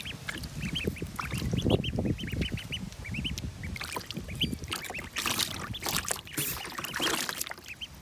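Two Pekin ducklings peeping over and over in short, high calls as they paddle in a plastic paddling pool, with water sloshing and splashing around them; a few louder splashes come between about five and seven and a half seconds in.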